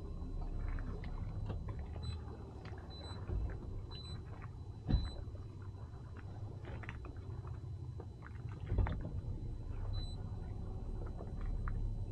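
Boat's outboard motor running at idle, a low steady rumble as the boat creeps forward over calm water, with two dull thumps about five and nine seconds in.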